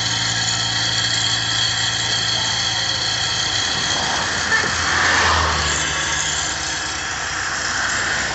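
Heavy engine of a truck crane running steadily during a house lift, its hum dropping lower in pitch about four seconds in. A single short knock about four and a half seconds in.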